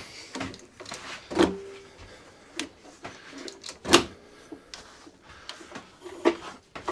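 Scattered clicks and knocks from the lawnmower's handlebar and controls being handled, a few with a short squeak. The loudest knock comes about four seconds in.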